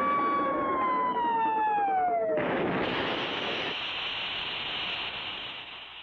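Cartoon sound effect of a rocket diving and crash-landing: a falling whistle drops steadily in pitch, then about two and a half seconds in it is cut off by a sudden crash, a burst of noise that fades away over the next few seconds.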